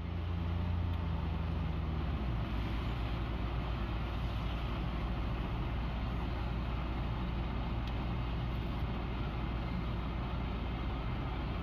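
Car driving, heard from inside the cabin: steady engine and road noise. A low engine drone drops away about two seconds in, leaving an even rush of tyre and road noise.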